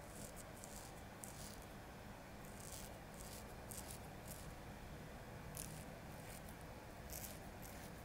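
Straight razor scraping through lathered stubble in a dozen or so short, crisp strokes, irregularly spaced, over a low steady room hum.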